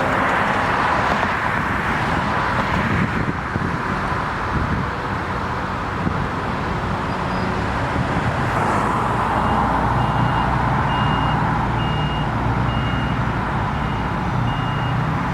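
Steady road and construction-site vehicle noise. About ten seconds in, an engine's low hum grows stronger and a reversing beeper starts, sounding a little faster than once a second.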